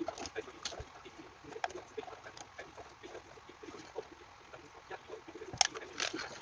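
Scattered light clicks and taps, as of small parts being handled, with a quick run of sharper clicks near the end.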